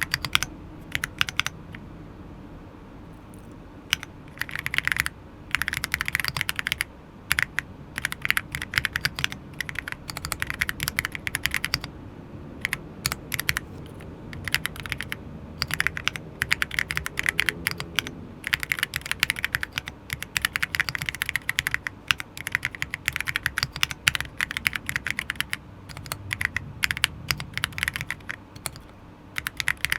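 Typing on a Monka 6067 aluminium gasket-mount mechanical keyboard with unlubed Akko CS Jelly White linear switches and Key Tok Pixel keycaps. The keystrokes come in fast runs of clicks with short pauses, the longest about two seconds in.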